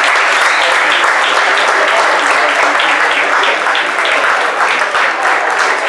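Spectators applauding steadily, a dense patter of many hands clapping, for a footballer leaving the pitch.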